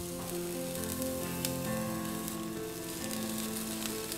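Egg and grated-potato omelette sizzling steadily in a non-stick frying pan, under background music with held notes.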